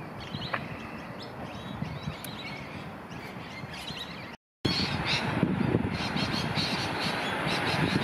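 Outdoor park ambience: short high bird chirps over a steady low background noise. The sound drops out for a moment about four and a half seconds in, then returns louder, with more chirping.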